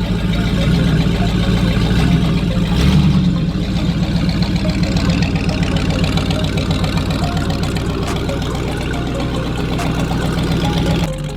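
Old hot rod engine running at idle with a rapid, steady beat, a little louder in the first three seconds.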